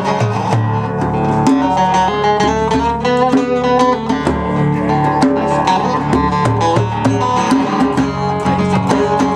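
Live band music led by plucked string instruments, a picked guitar melody moving over a steady strummed rhythm.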